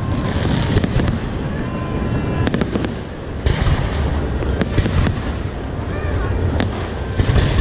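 Fireworks display going off: a rapid, irregular series of sharp bangs and crackles over a steady low rumble.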